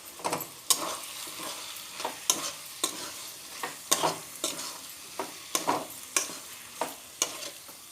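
Spatula scraping and knocking against a pan in repeated strokes as spice powders are stirred into onion-tomato masala frying in oil, under a steady sizzle.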